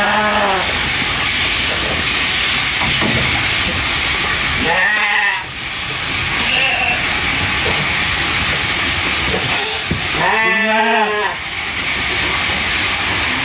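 Sheep bleating three times, the last call longer, over a steady hiss.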